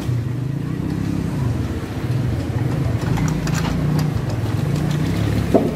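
Motor vehicle engine idling: a steady low hum that rises and falls a little in pitch, with a few light clicks about three to four seconds in.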